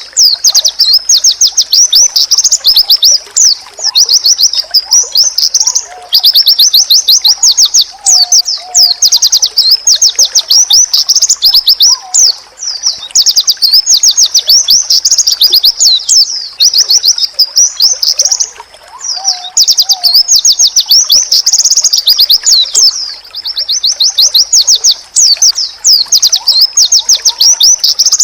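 A white-eye (pleci) singing a loud, rapid, high-pitched twittering song in long, almost unbroken phrases, with a few short pauses.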